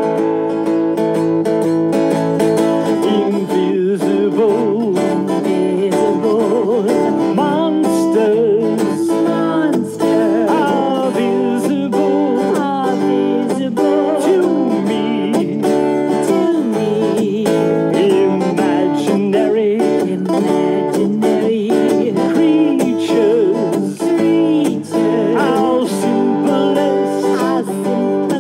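Music: a strummed acoustic guitar playing a song accompaniment, with a wavering melody line above it.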